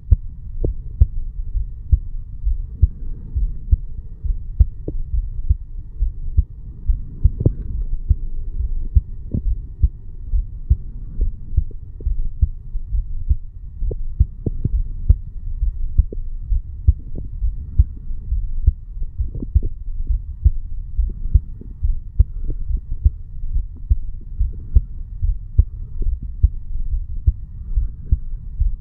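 Human heartbeat picked up over the mitral (bicuspid) valve area of the chest: a regular run of low, muffled thuds.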